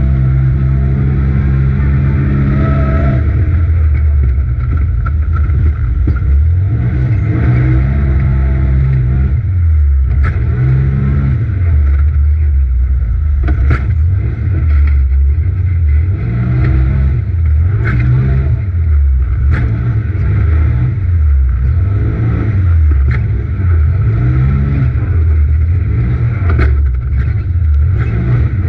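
Polaris RZR XP Turbo side-by-side's turbocharged twin-cylinder engine, heard from inside the cab under race throttle. It is held at steady revs for about three seconds, then rises and falls over and over as the car accelerates and lifts around the dirt track. Several sharp knocks are heard along the way.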